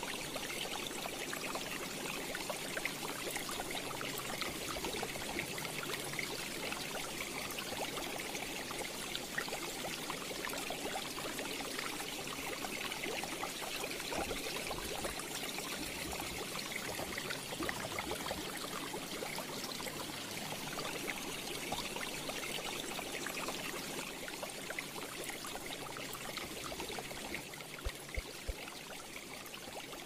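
Aquarium's internal filter churning the water: a steady trickling, splashing water sound with fine bubbling.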